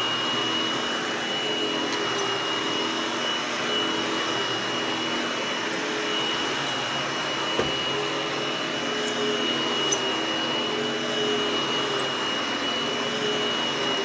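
Hoover HushTone canister vacuum with its power nozzle running steadily over carpet, a constant high whine over the motor hum, with a few faint ticks.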